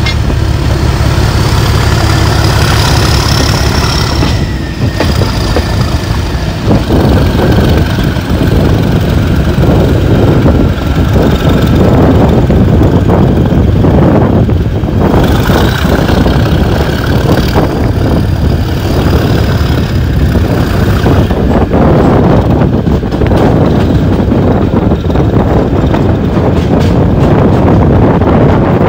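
Class 37 diesel-electric locomotive on the move, its English Electric 12CSVT V12 diesel engine running loud and steady. A high whistle rises and falls in pitch a few times over the engine.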